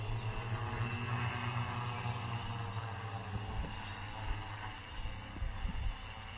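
A steady mechanical hum made of several pitched tones, fading gradually, with a thin high steady buzz above it. Short low thumps come in the second half.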